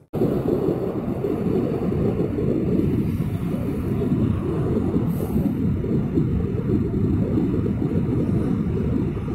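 Steady low rumble of sea surf and wind at the shoreline, a dense noise with no distinct events after a brief cut-out at the very start.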